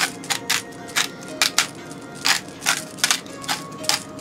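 Salt and pepper being dispensed over cube steak rolls in a clay tagine: a run of short, crisp rattling strokes, irregular at roughly three a second.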